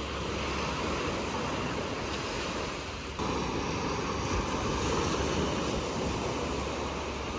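Small waves breaking and washing up a sandy beach: a steady surf hiss that steps up slightly about three seconds in.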